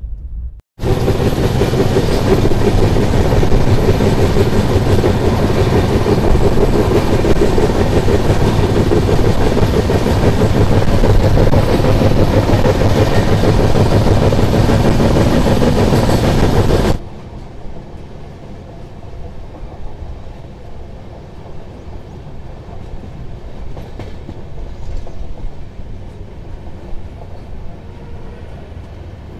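Express passenger train running at speed, heard loud from the moving coach with the camera held outside: a dense rush of wheel-on-rail rumble and wind. About two-thirds of the way through it drops suddenly to a much quieter, softer running noise.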